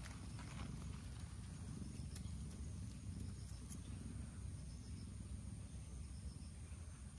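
Domestic cat purring in a steady low rumble as it is stroked on the head.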